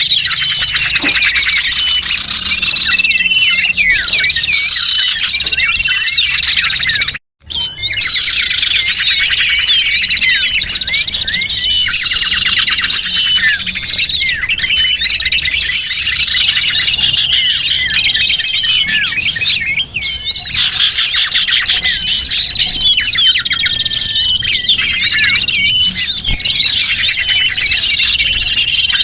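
A chorus of small songbirds chirping and trilling rapidly over one another, a bird-catcher's lure recording meant to draw small birds in. The sound cuts out for about half a second around seven seconds in, then resumes.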